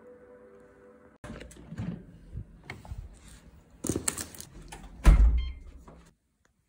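Cardboard delivery boxes being picked up and handled at a front door, with knocks and rustling, then a heavy door thud about five seconds in as the door shuts. Background music plays in the first second.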